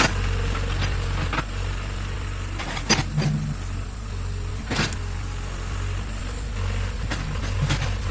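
Excavator's diesel engine running steadily with a low hum, with sharp knocks and clacks every second or two, the loudest about three seconds in.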